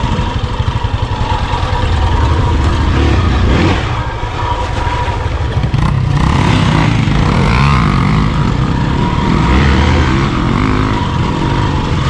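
Motorcycle engine under way on a rough off-road trail, the throttle opening and closing so the pitch rises and falls, with wind and rattle from the ride over it.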